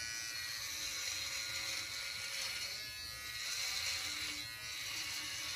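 Electric beard trimmer buzzing steadily as it is run through a thick full beard, its hum rising and dipping slightly as the blades bite into the hair.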